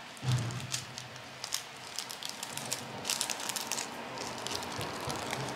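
A small plastic bag of diamond-painting drills being handled between the fingers: the plastic crinkles, with many small irregular clicks and crackles as the bag is worked.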